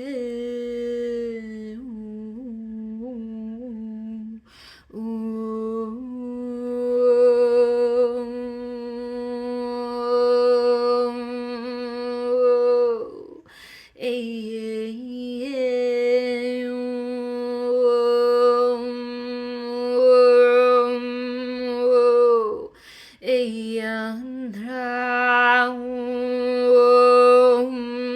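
A woman's voice humming and toning long held notes on one steady pitch, its vowel sound slowly shifting. It pauses briefly for breath about four, thirteen and twenty-three seconds in, and sings a few short wavering notes near the start.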